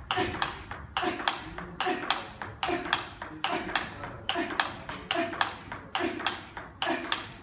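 Table tennis rally: the ball clicking in a steady, fast rhythm, about three times a second, alternately off the rubber bats and the table top.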